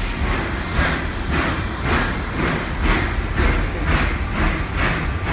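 Steam train running, with rhythmic pulses about twice a second over a steady low rumble of the moving cars.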